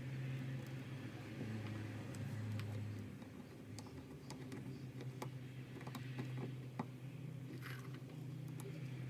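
Soldering iron tinning thick 8-gauge wires: scattered small crackles and clicks of flux and solder, with a brief hiss about three-quarters of the way through, over a steady low hum.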